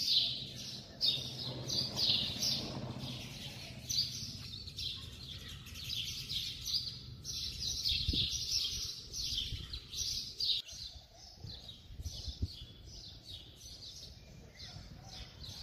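Small birds chirping over and over, a few short chirps every second, with a faint low rumble beneath in the first few seconds.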